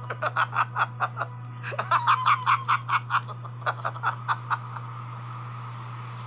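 A person laughing in three runs of quick, rhythmic 'ha' pulses, about five a second, which die away about four and a half seconds in.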